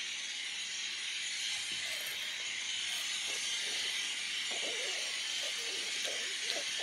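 A steady hiss, with a girl humming a wavering tune through closed lips from about three seconds in.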